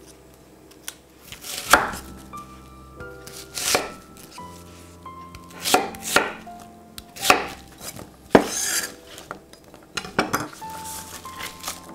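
Chef's knife slicing through a red onion and knocking on a wooden cutting board: separate crisp chops every one to two seconds, with a longer cutting scrape about two-thirds of the way in.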